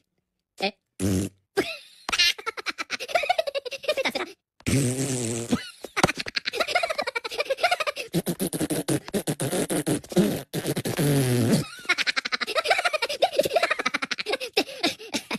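Cartoon Minion voices blowing rapid, buzzing fart-like raspberries at each other, broken by a few short pitched vocal squeals.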